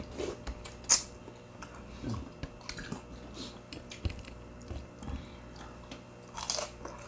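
Close-up eating sounds: chewing, with scattered light clicks of cutlery against dishes. A sharp click about a second in is the loudest.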